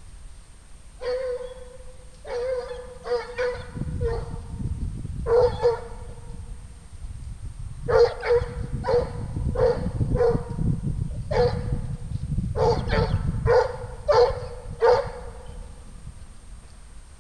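Bruno du Jura scent hound baying on a rabbit's trail: about twenty short, pitched bays in irregular bursts, with a pause in the middle.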